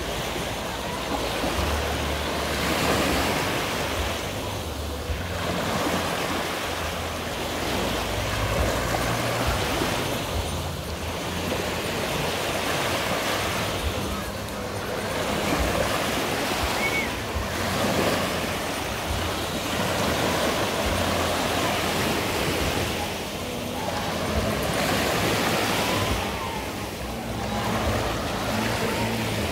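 Sea waves washing on the shore: a steady rush of surf that swells and eases every few seconds.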